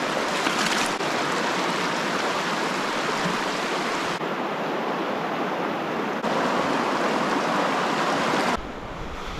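Virgin River water flowing and rushing in a steady wash through the Narrows, heard close as it is waded. The sound shifts abruptly several times as the shots change.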